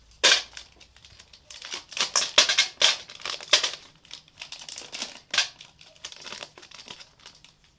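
Crinkling wrapper of a chocolate bar as the bar is broken into pieces inside its packaging: a string of sharp, irregular crackles.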